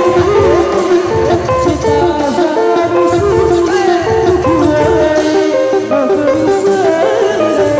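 Loud, upbeat Sundanese benjang procession music: a busy melody of quick stepped notes over heavy drum beats about once a second.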